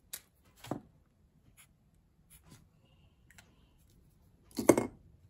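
Felt-tip marker coloring in boxes on a paper tracker: faint, scattered scratchy strokes, with a couple of small clicks near the start and one sharper, louder knock about four and a half seconds in as the marker is handled.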